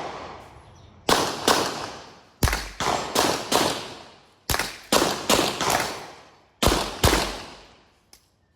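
Gunshots at an outdoor range, about a dozen in quick clusters: two shots, then four, four more, and a final two. Each shot is followed by a long echoing decay, and the firing stops about seven seconds in.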